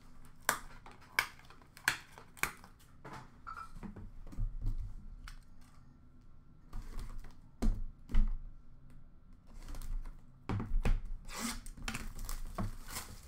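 Sharp clicks and knocks as a sealed trading-card box is handled, then bursts of crinkling and tearing as its clear plastic shrink wrap is pulled off.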